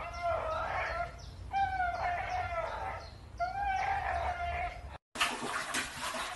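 A dog hanging by its jaws from a rope swing, giving three drawn-out, pitched calls, each under a second long and spaced a second and a half to two seconds apart. About five seconds in, after a brief gap, a dog lapping and splashing water in a toilet bowl.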